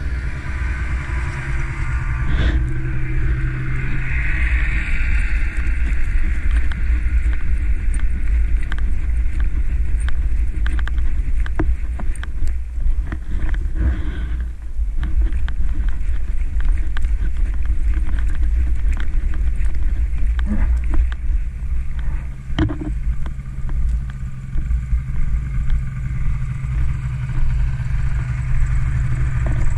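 Snowmobile riding along a packed trail, engine running under steady throttle with a heavy low rumble, heard from the rider's helmet. The engine tone fades in the middle stretch as the throttle eases, then returns in the last few seconds.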